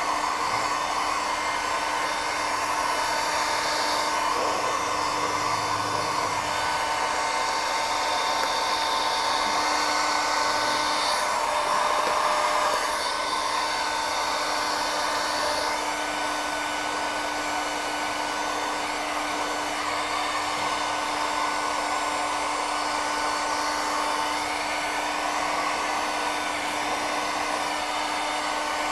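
Handheld electric heat gun running steadily, its fan blowing hot air with a constant motor whine. It is heating vinyl wrap film around a car's fuel filler door.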